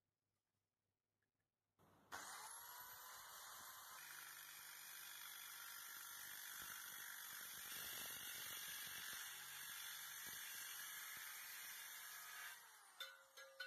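A Worx compact circular saw fitted with an abrasive angle grinder cutoff disc starts about two seconds in with a rising whine as the motor spins up. It then runs steadily, cutting through a hardened stainless steel tube. Near the end the sound dips and breaks up into a few clicks.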